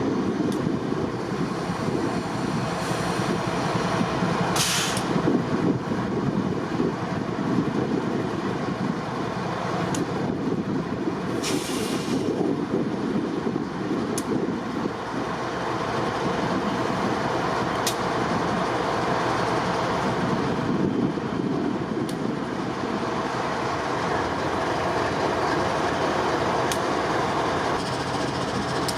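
Strong mountain wind blowing in a steady, loud rush and buffeting the microphone. Brief sharper hissing gusts come about five and twelve seconds in.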